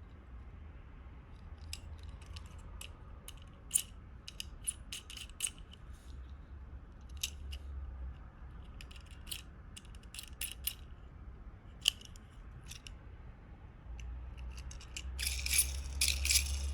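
Small die-cast toy cars clicking and clinking against one another as they are handled, irregularly, with a quick clatter of several knocks near the end.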